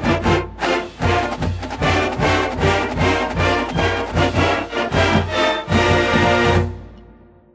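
Brass band music with a steady beat, fading out to silence near the end.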